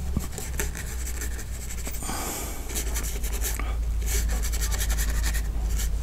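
Fan brush scrubbing and dabbing paint onto canvas over foam board, in quick runs of strokes several a second, with a steady low hum underneath.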